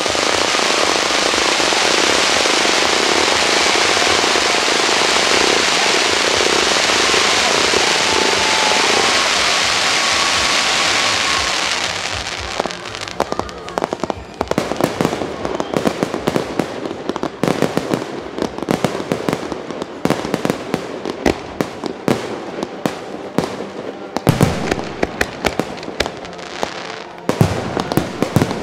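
A fireworks display: first a dense, steady rushing noise for about twelve seconds, then shells bursting in rapid, irregular bangs and crackles, with a couple of louder booms near the end.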